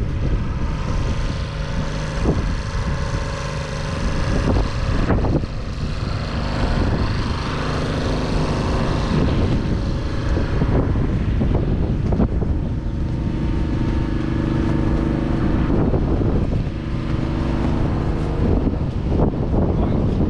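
Diesel tractor engine idling steadily, with wind buffeting the microphone.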